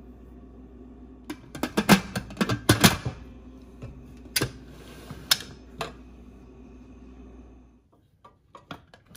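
Presto Professional stainless steel pressure cooker lid clattering and clicking as it is set on the pot and turned to lock, with a quick run of metal knocks about two seconds in and single sharp clicks a few seconds later, over a steady hum that cuts off near the end.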